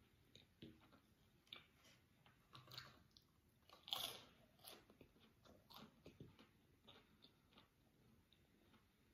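Faint close-up chewing of fried chicken nuggets: soft crunches, clicks and wet mouth sounds, with one louder, longer noisy sound about four seconds in.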